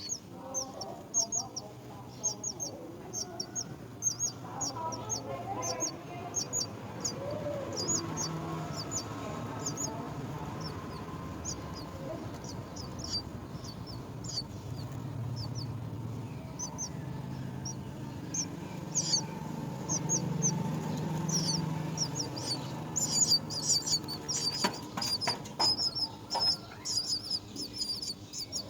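Small birds chirping: many short, high chirps in quick series, growing denser near the end, over a low background murmur.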